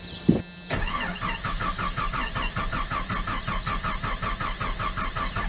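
Jeep Comanche engine cranking on the starter motor in a fast, even rhythm that cuts off abruptly, without catching. The fuel pump is unplugged and wired to a test light to check that the pump gets power during cranking. A steady hum and a single thump come just before the cranking begins.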